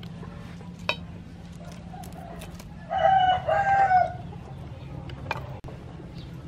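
A rooster crowing once, about three seconds in, lasting a little over a second.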